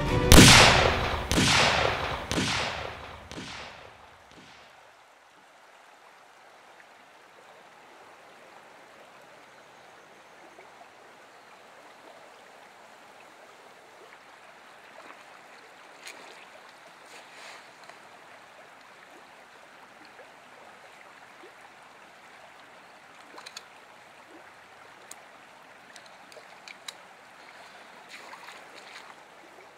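A few heavy booming hits in the first seconds, each fainter than the last, die away. Then a shallow creek trickles faintly and steadily over stones, with a few light ticks.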